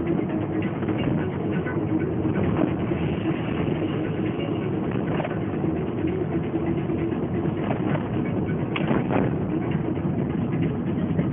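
Alfa Romeo 145 1.6 with its flat-four boxer engine, heard from inside the cabin while driving: steady engine hum and tyre and road noise. A few short knocks come about five and again about nine seconds in.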